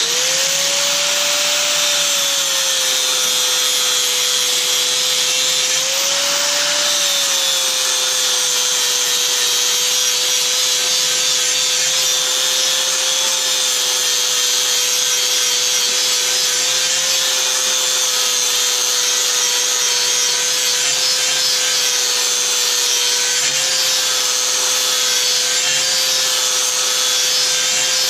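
Angle grinder spinning up and grinding the cutting edge of a steel lawn mower blade: a steady high whine over a dense hiss of metal being ground. The whine briefly rises in pitch about six seconds in.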